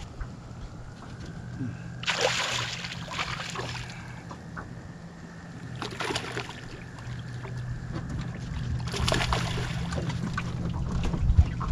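A hooked spotted bass splashing at the surface as it is fought to the side of a jon boat, in three bursts: about two seconds in, around six seconds and about nine seconds in. A steady low hum runs underneath.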